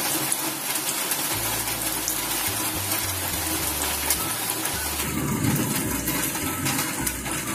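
Steady rushing hiss of heavy rain mixed with karanjis sizzling as they fry in hot oil in a kadhai.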